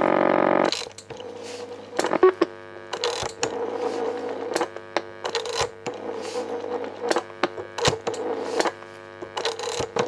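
Loudspeaking Telephone No. 2A's loudspeaker on an open line: a loud buzzy line tone cuts off suddenly just under a second in. A steady hum follows, with irregular clicks and crackles; it is a slight buzz that the repair has not yet got rid of.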